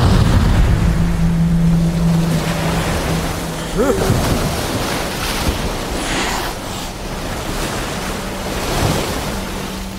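Loud rushing and crashing of a flood wave of water, a film sound effect that slowly dies down. A low steady tone hums underneath for the first few seconds, and a short wavering tone sounds about four seconds in.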